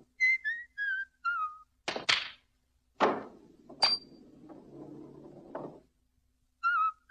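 Cartoon whistling of a jaunty tune in short sliding notes, broken by the knocks of a pool shot: two sharp clacks about two seconds in, then a heavier knock and a click followed by a low rumble lasting nearly three seconds. The whistling resumes near the end.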